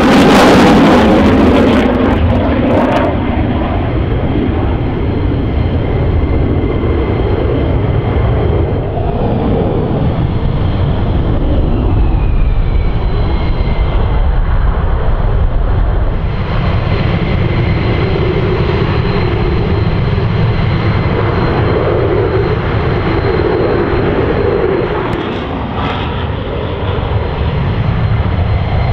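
F-16 fighter jet engines, loudest in the first few seconds as a jet passes close, then a steady rumble, with a whine falling in pitch around ten to thirteen seconds in.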